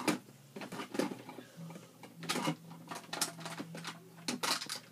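Small plastic Play-Doh tools clicking and clattering against each other as they are rummaged through, a string of irregular taps. A faint steady hum sounds under them for a few seconds in the middle.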